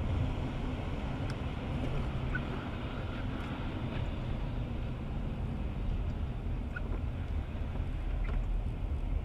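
Steady low rumble and hiss of a car driving on a wet highway, heard from inside the cabin, with tyre and road noise, and a few faint ticks scattered through it.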